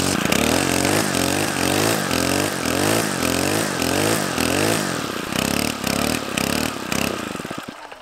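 Gas string trimmer's engine revved up and down over and over as the throttle trigger is squeezed and let go, about every half second, then winding down and stopping just before the end.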